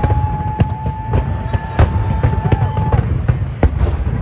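Fireworks bursting across a harbour: a dense run of sharp bangs and cracks over a continuous low rumble. A long steady high tone holds over them until about three seconds in.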